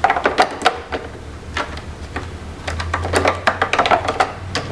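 Quick runs of light plastic clicks and rattles as the Elisa 300 ventilator's turbine air filter, a pleated filter in a plastic frame, is handled and pushed into its slot in the housing: one cluster in the first second, another from about the middle on. A low steady hum runs underneath.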